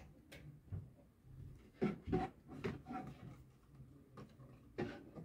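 Scattered light knocks, bumps and rustling of someone climbing a tall frame and rummaging among things on a high shelf, with a few louder knocks about two seconds in and near the end.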